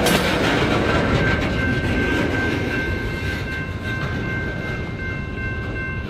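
Freight train's last cars rolling past and away on jointed rail, a steady rumble and rail clatter that slowly eases. A thin, steady high whine starts about a second and a half in.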